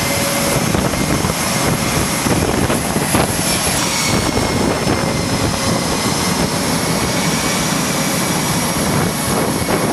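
Jet engines of carrier aircraft running on the flight deck: a loud, steady rush of noise with a high turbine whine on top that shifts in pitch about four seconds in.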